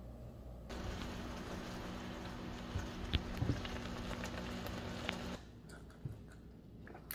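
Spicy stir-fried baby octopus sizzling in a nonstick pan, with a silicone spatula stirring and scraping and a steady low hum alongside. About five seconds in, the sizzling cuts off, leaving a few light clicks of utensils on a plate.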